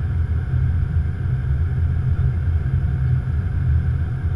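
Steady low rumble of airflow and engine noise inside an Airbus A330-200 cockpit on final approach, with a fainter even hiss above it.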